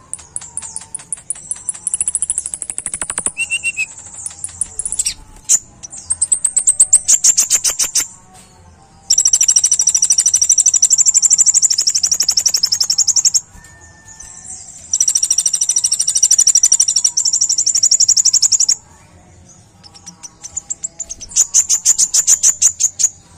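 Kolibri ninja sunbird singing: rapid-fire trills of very quick, high-pitched repeated notes ('tembakan'), in bursts of two to four seconds with short pauses between.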